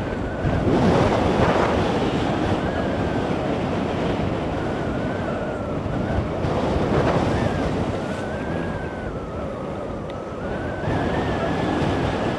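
Airflow rushing over the microphone of a hang glider in flight, swelling in gusts about half a second in and again around seven seconds. A thin wavering whistle sits above the rush throughout.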